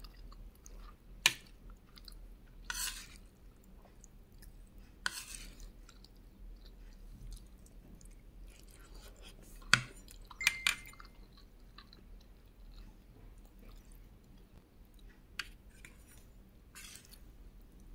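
Close-up chewing and mouth sounds of someone eating soft rice and fried egg, with a few wet smacking bursts. A handful of sharp clinks of a metal spoon against the plate come at intervals, the loudest about ten seconds in.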